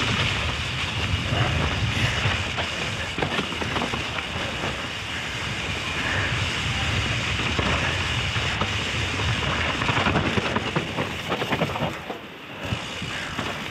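Mountain bike rolling down a wet, muddy trail: a continuous hiss of tyres with a rapid clatter of knocks and rattles from the bike over rough ground, over a steady low rumble. The noise eases briefly near the end.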